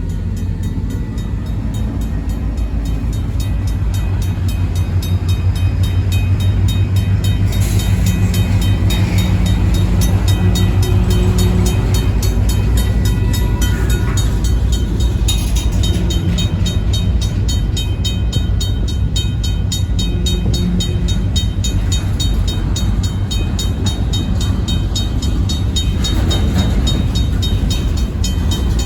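RACO mechanical railroad crossing bell ringing with rapid, even strikes, over the low rumble of a Union Pacific diesel locomotive moving slowly through the crossing.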